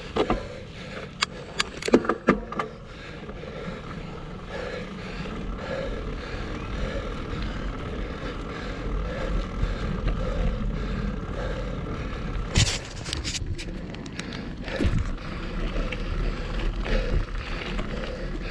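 Mountain bike rolling along a dirt singletrack: a steady tyre-and-wind rumble, with sharp clicks and rattles from the bike over bumps near the start and a louder burst of rattling about two-thirds of the way through.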